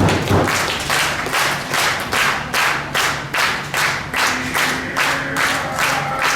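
Crowd clapping in unison at a steady beat of about three claps a second.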